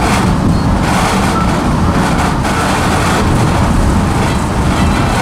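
Passenger train running, heard from aboard a coach: a steady low rumble of wheels and carbody.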